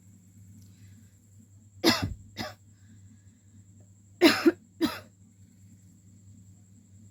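A woman coughing in short harsh coughs: two about two seconds in, then three more in quick succession a little after four seconds, over a faint steady hum.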